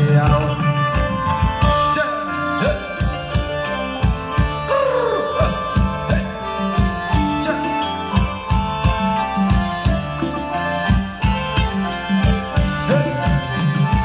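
Live band playing Thai ramwong dance music: a fast, steady hand-drum beat under held melody notes.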